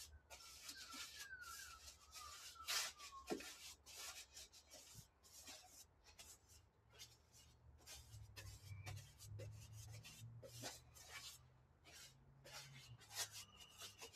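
Paintbrush scrubbing paint onto the bare sheet-metal body of a Toyota Hilux: faint, repeated short scratchy brush strokes, one or two a second.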